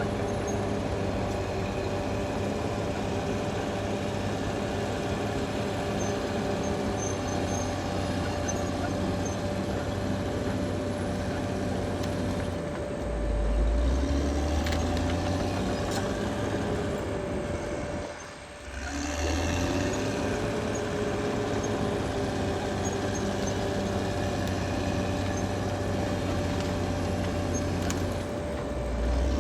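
Caterpillar D6R XL bulldozer's diesel engine running steadily under work, with a steady whine over it. About two-thirds through the engine note drops briefly, then climbs back up.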